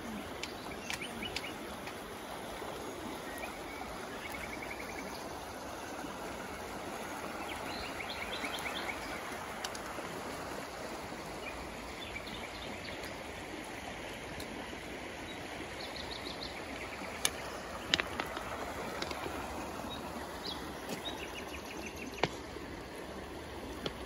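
Small river rushing steadily over gravel shallows, with songbirds singing short rapid trills over the water noise. A few sharp clicks come in the later part.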